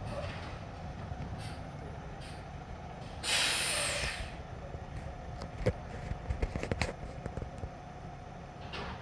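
Autocar ACX front-loader garbage truck idling with a low steady rumble. About three seconds in comes a loud burst of air-brake hiss lasting about a second, and a couple of seconds later a quick run of sharp knocks and clanks.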